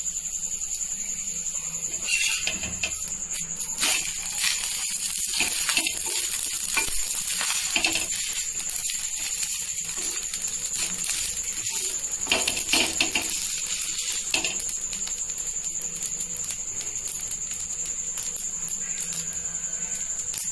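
Dosa batter sizzling on a hot tawa while a ladle scrapes and taps against the pan, spreading fresh adai batter. The clicks and scrapes come between about two and fifteen seconds in over a steady hiss.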